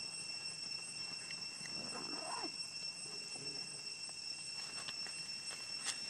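Steady high-pitched insect drone, one even whine with higher overtones, running without a break. A brief faint call rises and falls about two seconds in.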